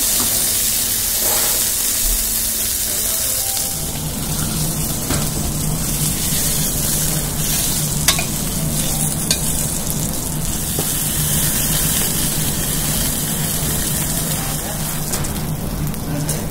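Whole masala-coated fish shallow-frying in hot oil in a pan: a steady sizzle. A low steady hum joins about four seconds in, and there are two sharp clicks near the middle.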